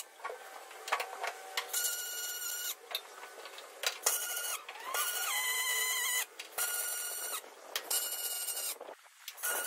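MIG welder laying a series of short welds on aluminium: about five bursts of steady buzzing arc, each roughly a second long, with a longer two-second run in the middle.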